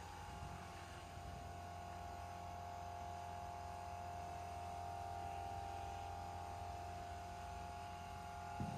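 Faint steady electrical hum with a single held mid-pitched tone over it, unchanging throughout.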